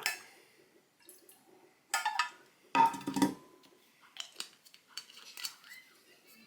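Dishes and utensils clinking and knocking: a few separate clatters, the loudest about three seconds in leaving a brief ringing tone.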